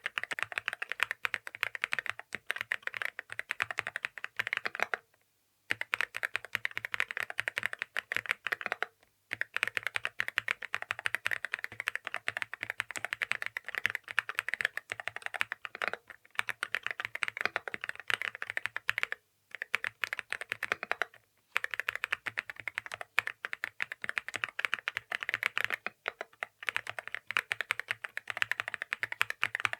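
Typing on a Yunzii X98 mechanical keyboard with Snow linear switches: fast, continuous key presses in runs, with a few short pauses between them.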